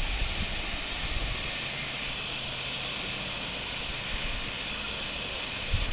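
River water flowing below a stone bridge, a steady rushing hiss, with wind buffeting the microphone in low thumps near the start and again near the end.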